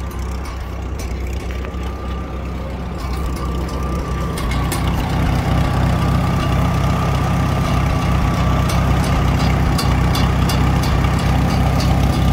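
1940 Farmall H tractor's four-cylinder gasoline engine idling steadily, growing louder about four seconds in as it comes close.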